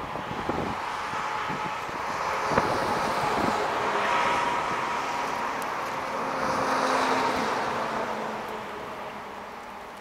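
A road vehicle passing at some distance: a rushing engine and tyre noise that swells over the first few seconds, peaks twice, then fades away toward the end.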